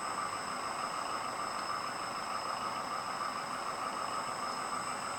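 A steady, unchanging mechanical drone with two faint high-pitched whines above it.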